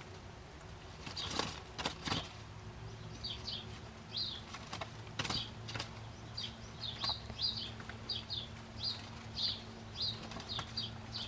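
Muscovy ducklings peeping, short high peeps about two a second from about three seconds in, with a few sharp clicks as they peck at bindweed leaves and move in wood shavings. A faint steady hum runs underneath.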